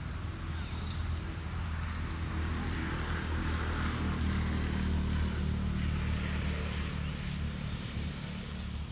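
Steady low engine hum of a motor vehicle, building slowly towards the middle and easing off near the end.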